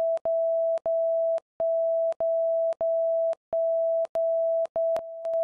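A string of back-to-back censor bleeps: one steady beep tone cut into about ten beeps of roughly half a second each, with short clicking gaps between them and a quieter stretch near the end. It stands in for a bleeped-out shouting match.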